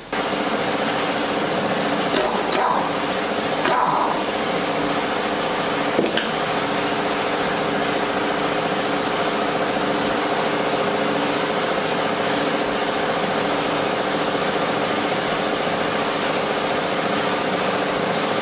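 A workshop machine's motor starts abruptly and runs steadily with a hum and hiss. A few metal clanks come through it, about two and a half, four and six seconds in.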